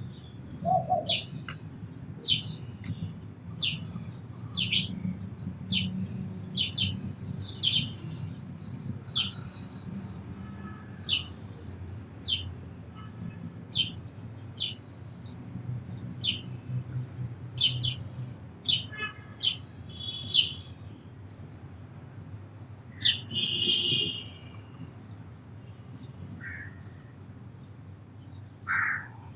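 Sparrows chirping: a quick run of short, high chirps, about one to two a second, that thins out to occasional calls later on, with one harsher call about three-quarters of the way through, over a low steady rumble.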